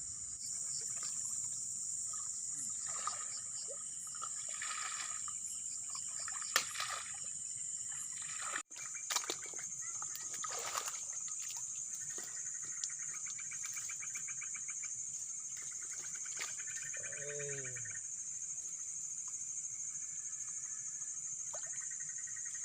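Water splashing and sloshing through the first half as a hooked eel is hauled in on a fishing line, over a steady high-pitched buzz of night insects. A rapid trill sounds for several seconds in the second half.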